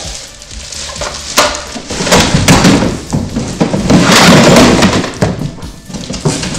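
Unpacking noise: a plastic bag rustling and large hollow plastic toy panels scraping and knocking against a cardboard box, irregular, with a sharp knock about a second in and the loudest scraping around the middle.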